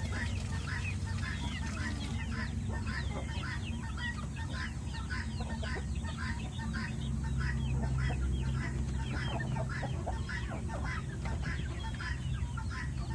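A flock of chickens calling: many short, falling calls, several a second and overlapping. A steady low rumble runs underneath.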